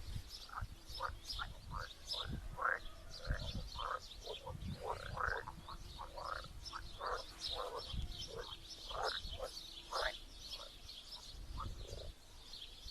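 A chorus of many pond frogs croaking in quick, overlapping calls, with birds chirping high above them.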